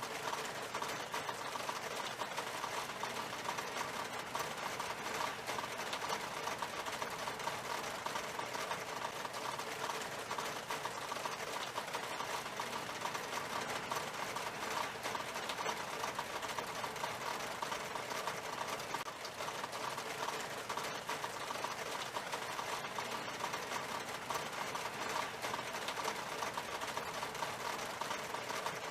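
Rain falling steadily on window glass: an even, dense stream of small drop taps on the pane, with no let-up.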